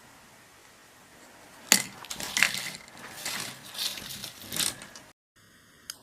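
A run of sharp crackling and clattering noises, with a loud crack at the start, that cuts off suddenly near the end.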